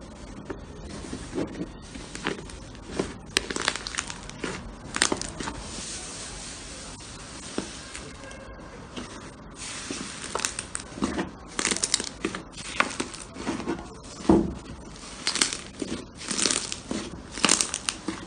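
Slime being squeezed and pressed by hand, with irregular crackly pops and clicks that come thicker in the second half.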